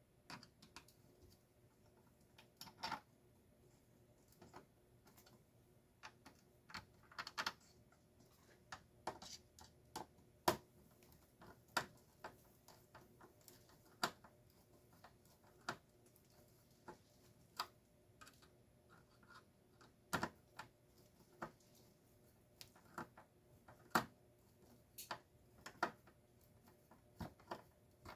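Scattered light clicks and taps, irregular and roughly one a second, of small parts and hand tools being handled during the teardown of a garage door opener's gearbox.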